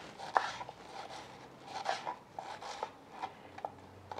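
Kitchen knife dicing an onion on a wooden cutting board: irregular light taps of the blade on the board, with soft crunching of the onion between them.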